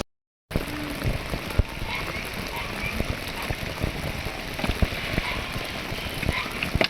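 Steady pattering of falling rain or wet snow, many small drops ticking on a surface, after a brief silence at the very start.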